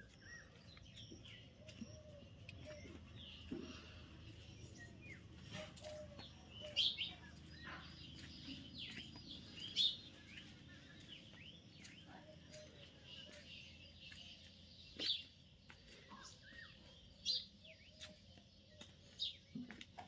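Several small birds chirping and calling in a garden chorus: many short, high notes and trills scattered throughout, with a few louder calls standing out.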